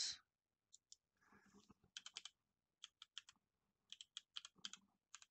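Faint typing on a computer keyboard: keystrokes in short quick runs as a word is typed.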